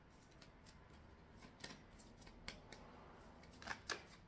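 Tarot cards being handled and shuffled at a table: scattered light card clicks and snaps, with two sharper snaps close together near the end.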